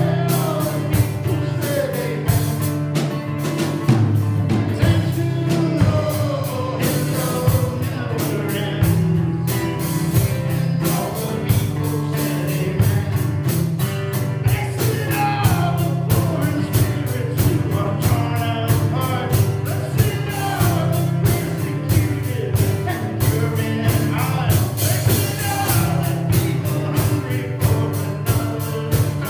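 Live worship song: a man sings lead while strumming an acoustic guitar, backed by a drum kit keeping a steady beat.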